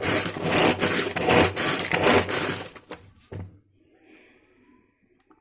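Pull-string manual food chopper being pulled over and over, each pull spinning its blades through onion inside the plastic bowl with a rough whirring rasp, about two pulls a second. It stops about three seconds in.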